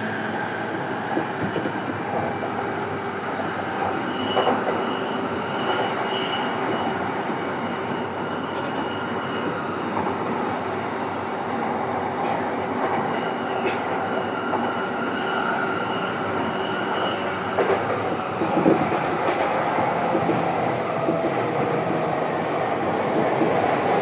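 Saikyō Line E233-7000 series commuter train heard from inside a motor car while running: a steady rumble of wheels on the rails with light clatter, and a few faint steady tones over it.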